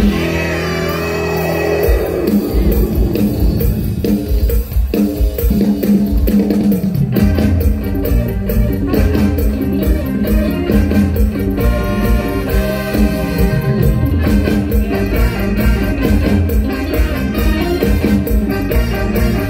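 Live mor lam band music played loudly for a stage dance. A pitch sweep glides downward over the first couple of seconds, then the drums come in with a steady, driving beat under the band.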